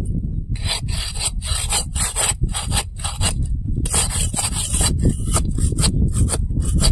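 Metal spatula scraping the bottom of an aluminium kadai in quick back-and-forth strokes, about three a second, stirring oil and spice paste. The scraping starts about half a second in and pauses briefly midway.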